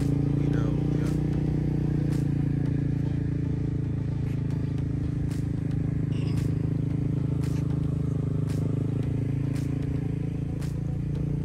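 Vehicle engine running steadily at low speed, with a faint regular click about once a second.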